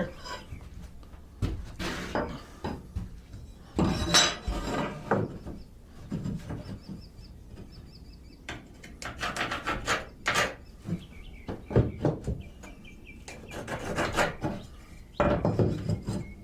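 Irregular wooden knocks and scrapes with light metallic clinks, from hand tools and a wooden sheet being handled on a work surface.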